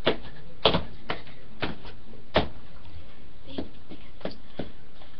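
About ten irregular thumps and knocks from a person dancing, feet landing and stamping on the floor. The strongest come in the first second and about two and a half seconds in. A steady background hiss runs underneath.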